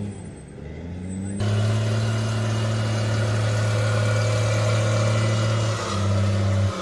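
Eight-wheeled Stryker armoured vehicle's diesel engine running as it drives, its pitch rising over the first second or so. About a second and a half in it turns suddenly much louder, close by, with a rushing noise over the engine hum, and drops again just before the end.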